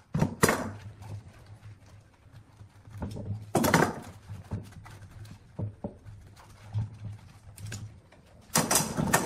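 Steel bar clamps being loosened and lifted off a glued-up wooden block, knocking and rattling as they are handled and put down on a wooden workbench. Three bouts of clatter: near the start, about halfway, and near the end.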